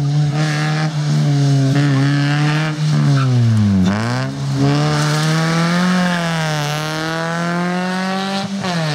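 Fiat Cinquecento rally car with a 1.2-litre 16-valve four-cylinder engine, driven hard on a rally stage. The engine is held at high revs, drops sharply as the driver lifts off about four seconds in, then climbs steadily again under acceleration before easing off near the end.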